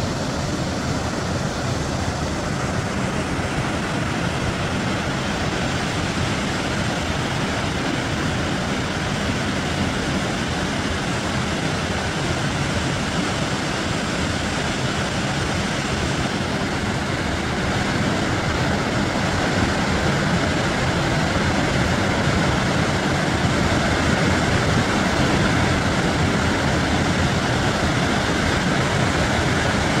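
Steady roar of rushing water from the Reekie Linn waterfall, growing a little louder about two-thirds of the way through.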